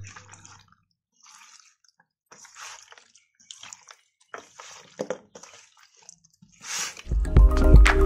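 Raw chicken pieces squelching as a hand kneads them with turmeric and spice paste in a steel bowl: a string of short, faint wet squishes. Background music stops at the start and comes back near the end.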